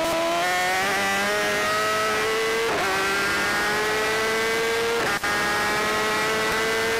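Racing superbike engine heard onboard, revving high and accelerating hard, its pitch climbing steadily with quick upshifts about three and five seconds in. A steady rushing noise runs underneath.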